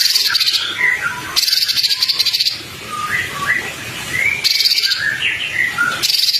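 Songbird song for training kept birds: short whistled phrases that glide up and down, alternating about every second with high buzzy trills, each lasting about a second.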